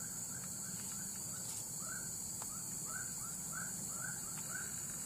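Outdoor field ambience: a steady high-pitched insect drone, with a run of short chirping calls repeated about two or three times a second.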